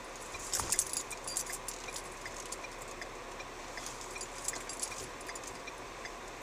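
Car cabin noise as the car creeps over a rough, potholed street, with light jingling and clinking rattles, busiest in the first couple of seconds, and a faint regular tick about twice a second.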